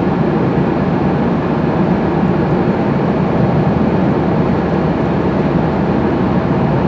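Steady road and engine noise of a moving car, heard inside the cabin: an even rumble with hiss, unchanging throughout.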